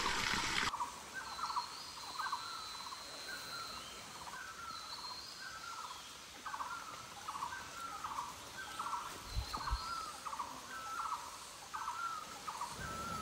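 A forest bird calling a short note over and over, roughly three calls every two seconds, each dropping in pitch. A few higher, thinner whistles from another bird come in now and then.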